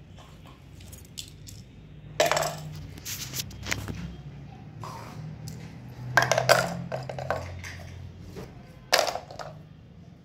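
Small plastic toy blocks dropped one by one into a toy truck's cargo bed, several sharp clattering knocks a second or more apart.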